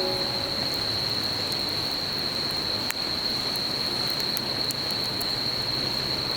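Outdoor ambience: a steady high-pitched insect drone over a continuous hiss, with a couple of faint clicks.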